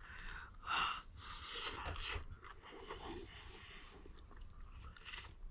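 A person biting into and chewing a piece of campfire-cooked bread, in short uneven bursts of mouth noise; the bread is still doughy in the middle.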